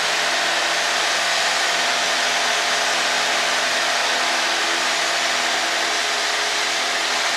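Cockpit noise of a Cessna climbing out at takeoff power: a steady, loud drone of the piston engine and propeller, with an even hum of engine tones under it.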